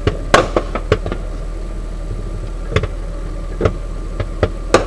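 Scattered sharp cracks of gunfire, about four in the first second and a handful more near the end, over the steady hum of an idling armoured vehicle.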